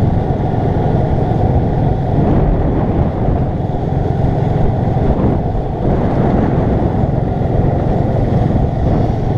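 Golf cart driving along a road: a steady low rumble from the moving cart and its tyres, with no breaks.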